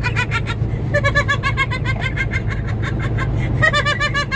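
A woman laughing hard in three bouts of rapid, high-pitched "ha"s with short breaks between them, over the steady low drone of a semi truck's engine and road noise inside the cab.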